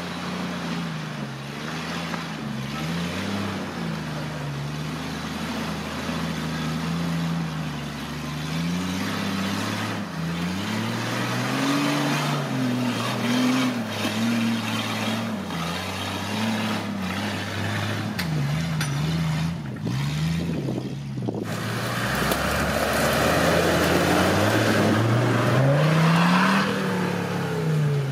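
Off-road 4x4 engine revving up and down again and again, as when working through rough ground. About three-quarters of the way through, a loud rushing, churning noise suddenly joins it.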